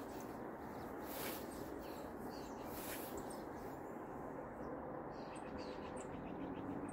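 Scythe blade swishing through tall grass, two strokes about a second and a half apart in the first three seconds, over a steady low hiss. Birds chirp now and then.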